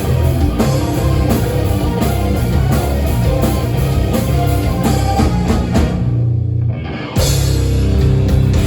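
Rock band playing live with a full drum kit, loud and dense. About six seconds in, everything but a low held note cuts out, and the full band crashes back in about a second later.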